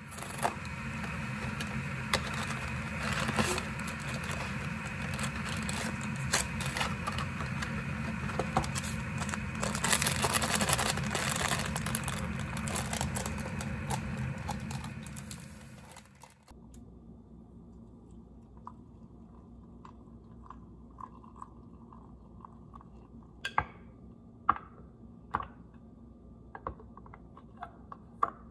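A cardboard soup box and a powder sachet being torn open and crinkled: a dense crackling rustle full of small clicks that stops abruptly about sixteen seconds in. After a quieter stretch, a few light clicks near the end from a wooden spoon knocking a glass mug while stirring.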